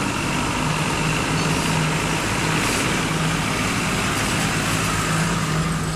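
Vehicle engine running steadily, with a constant low hum under a broad rushing noise.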